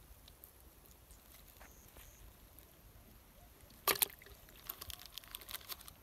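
A small fish dropped into a plastic bucket of water: one short splash about four seconds in, followed by a run of light clicks and rustles.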